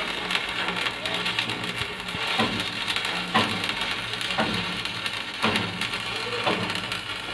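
Shielded metal arc (stick) welding: the arc crackles and sizzles steadily as a coated electrode runs a vertical-up weld on steel plate, swelling about once a second.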